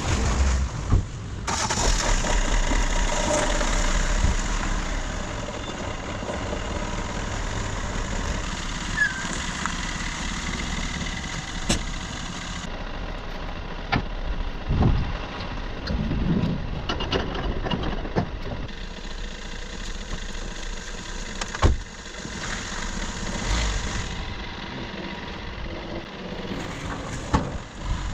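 An engine running steadily, with a few sharp knocks.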